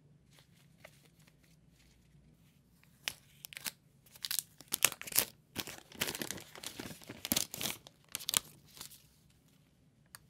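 Clear plastic protective wrap crinkling and tearing as it is peeled off a new smartphone: a run of rustles and sharp crackles starting about three seconds in and ending near the end.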